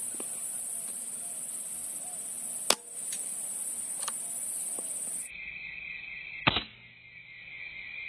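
Air rifle firing: a single sharp crack about two and a half seconds in, over a steady high-pitched insect drone. After an abrupt change in the background, a second sharp crack comes about six and a half seconds in, over a lower steady insect whine.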